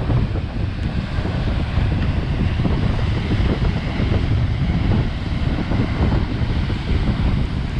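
Gale-force wind of about 30 mph buffeting the microphone in loud, uneven gusts, with rough surf behind it.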